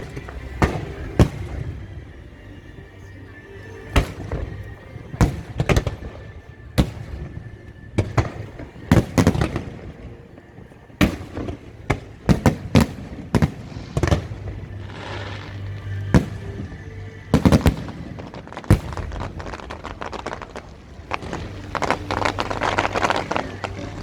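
Fireworks bursting: a long series of sharp bangs at irregular intervals, some single and some in quick clusters.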